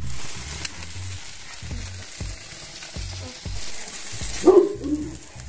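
Shashlik meat sizzling over hot charcoal in a brick mangal grill, a steady hiss. A short, loud call cuts in about four and a half seconds in.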